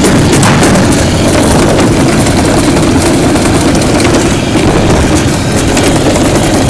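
Summer toboggan sled sliding fast down a stainless-steel trough: a loud, steady rumble of the sled running on the metal channel, with a few faint knocks.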